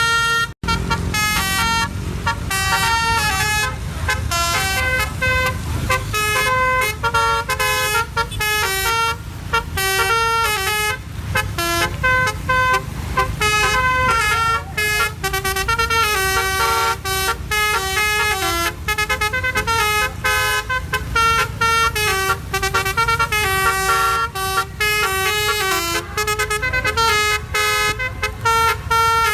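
Telolet horn, a multi-note truck air horn, playing a fast tune of stepped notes over a steady low rumble.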